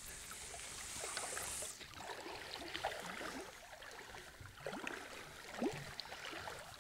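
Faint outdoor wind-and-water noise: a steady hiss, with a higher hiss that cuts off about two seconds in and a few faint short squeaks scattered after it.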